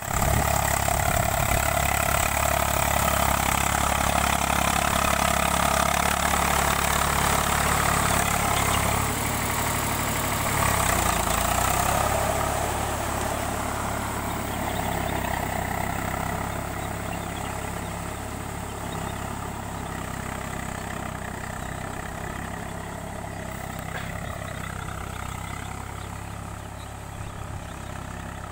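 Eicher 485 tractor's three-cylinder diesel engine running steadily while working a field, loud at first and growing gradually fainter from about twelve seconds in.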